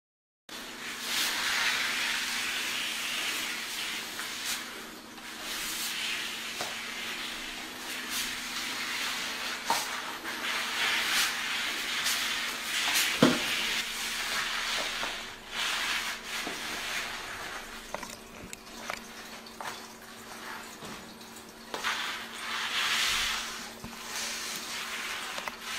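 Dry-pad floor sweeper swishing back and forth over a wooden floor, the hiss swelling and fading with the strokes, with scattered light knocks and one sharper knock about halfway through, over a faint steady hum.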